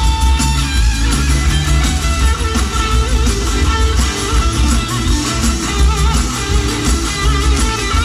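Live folk music from a large plucked-string ensemble: guitars and mandolin-like lutes strummed and plucked together over a strong bass, playing steadily and loudly.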